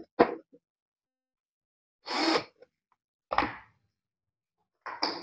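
Cordless drill driving screws into a plywood back cover: a sharp click and knock at the start, a short burst of the drill running about two seconds in, then a thump just over a second later and a few knocks near the end.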